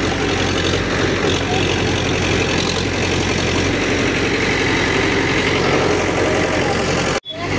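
A steady engine rumble, like a truck engine idling, which breaks off for an instant near the end.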